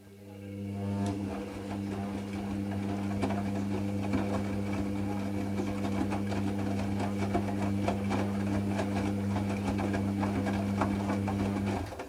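Hoover Nextra front-loading washing machine's drum motor turning a load of wet towels: a steady hum that builds over the first second and cuts off abruptly near the end, with the laundry and water sloshing and clicking in the drum throughout.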